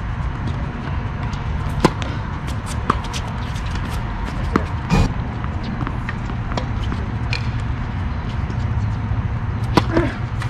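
Tennis ball struck by rackets and bouncing on a hard court during a doubles rally: short sharp pops a second or more apart, the loudest about halfway through and a pair near the end, over a steady low rumble.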